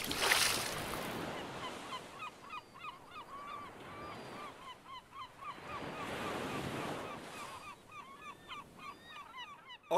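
Seashore ambience: surf washing in and out, swelling twice, under a flock of water birds making many short honking calls.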